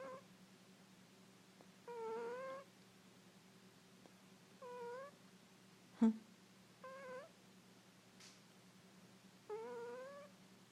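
Kitten snoring in its sleep: a high-pitched, squeaky snore on each breath, each rising slightly in pitch, coming about every two and a half seconds. A brief knock about six seconds in.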